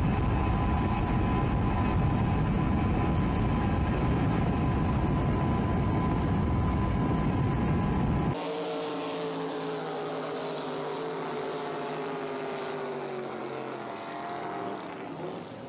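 Motorboat engine running under a loud rushing, rumbling noise of wind and water, with a thin steady whine. About eight seconds in the sound changes abruptly to a quieter, high-revving powerboat engine whose pitch slowly falls as it backs off.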